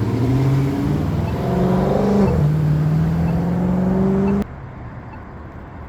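A car accelerating through the intersection, its engine pitch rising, dipping at a gear change about two seconds in and rising again, then cutting off abruptly. Faint ticks about once a second from the crosswalk push button's locator tone.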